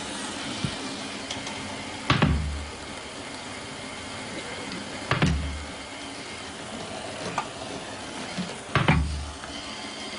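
Roomba robot vacuum running with a steady whirr and bumping into an obstacle with a dull knock three times, about three seconds apart.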